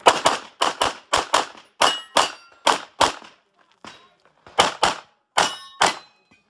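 Pistol fired in rapid double-taps: about fourteen shots in seven quick pairs, with a pause of about a second and a half midway before the last pairs.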